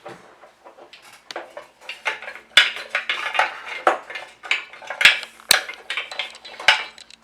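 A mixing spoon clinking and scraping against a bowl in quick, irregular strokes as slime ingredients are stirred together.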